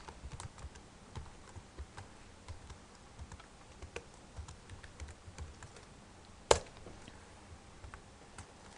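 Computer keyboard typing: quiet, scattered keystrokes, with one much louder key press about two-thirds of the way through.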